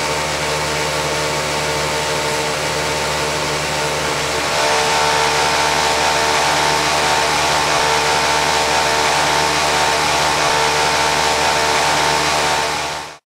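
Atlanta Attachment 1347MA automatic tape-edge sewing workstation running with a steady motor whine and whirr. It gets louder about four and a half seconds in and drops away sharply near the end.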